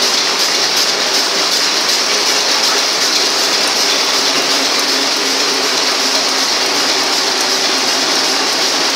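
High-speed W&D envelope making machine running in production: a loud, steady, rapid mechanical clatter from its moving mechanism.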